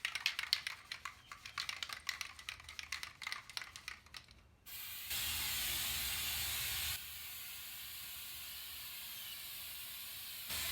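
Aerosol can of undercoating being shaken, its mixing ball rattling in rapid clicks for about four seconds, then spraying in a steady hiss that drops somewhat in level about halfway through.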